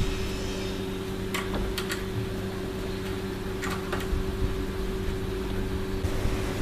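A steady low mechanical hum, with a few brief ticks about one and a half, two and three and a half seconds in.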